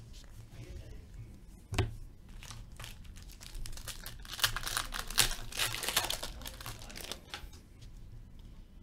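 Hockey card pack wrapper being torn open and crinkled by hand. There is a sharp click a little under two seconds in, and a burst of crinkling through the middle.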